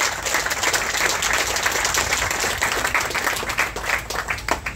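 Crowd applauding with dense, irregular clapping that thins out and dies away near the end.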